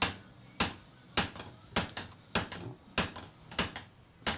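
Hand hammer striking red-hot quarter-inch-wall steel pipe on an anvil, eight sharp blows in an even rhythm about 0.6 s apart, each with a short ring. This is hand forging of the hot pipe into a cone.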